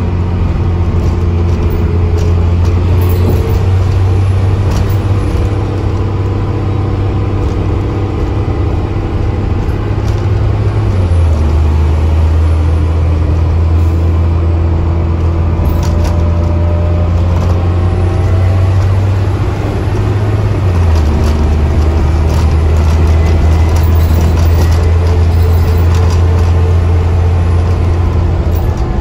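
Dennis Trident double-decker bus being worked hard, heard from the upper deck while under way: a loud, steady, deep engine drone that steps down in pitch twice, about 11 and 21 seconds in.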